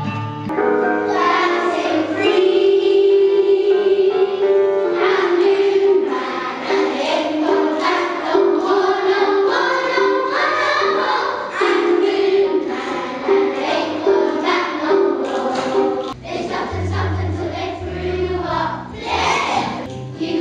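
A group of young schoolchildren singing a song together. About 16 seconds in, the sound breaks off abruptly into a different passage with a deeper accompaniment.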